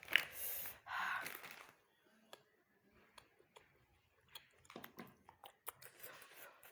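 A person hissing and blowing out hard breaths against the burn of very spicy food, then faint chewing, with scattered small mouth clicks.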